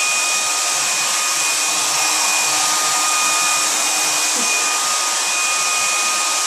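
Hair dryer running steadily: an even rushing blow of air with a thin, steady whine on top.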